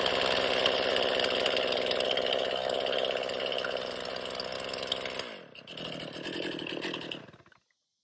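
Stihl MS 261 C-M chainsaw's two-stroke engine idling steadily through an M-Tronic reset idle; the saw is running lean, not getting enough fuel. About five seconds in the engine note drops away, and the saw dies out completely about two and a half seconds later as it is shut off.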